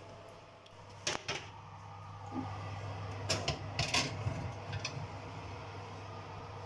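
Glass baking dish handled and slid onto a metal oven rack: a few sharp knocks and clinks, over a steady low hum.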